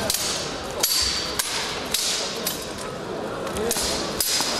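Steel longswords clashing against each other and against plate armour: a string of sharp metallic clanks, about one every half second for the first two seconds and more near the end, one leaving a brief high ring.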